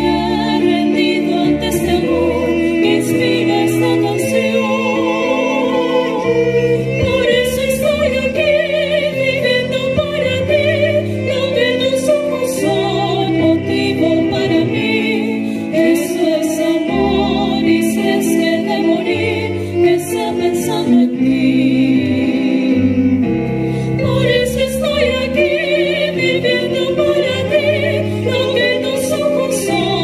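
Female voices singing a song with violin and digital piano accompaniment, the voices held with wide vibrato.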